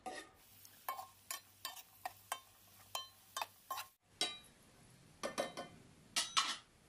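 A metal spoon clinking against a small pan as almonds, cashews and raisins are stirred while frying in ghee: a string of sharp clinks, about three a second, with a brief break about four seconds in and a few more clinks after.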